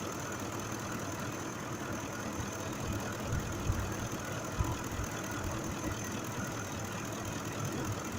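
Ford F-150's 5.4-litre V8 idling steadily, with a few soft low bumps near the middle. The engine is running with a newly replaced number 2 fuel injector that cured a misfire the mechanic traced to a mechanical injector fault.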